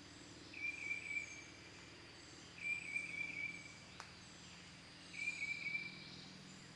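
Bird calls in the background: a short trilled call repeating about every two and a half seconds, with faint higher chirps between. A single sharp click about four seconds in.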